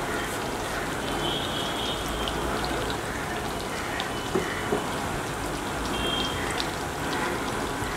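Chicken pakora pieces deep-frying in hot oil: a steady sizzling hiss with scattered crackles and a couple of sharper pops about halfway through.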